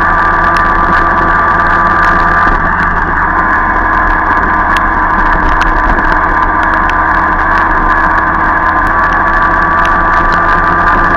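Jawa Pionýr moped's 50 cc two-stroke single running steadily at cruising speed, heard close up from the moped itself, with sharp ticks now and then.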